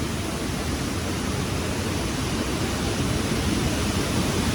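Waterfall roaring steadily close by: an unbroken rush of falling water with a deep rumble underneath.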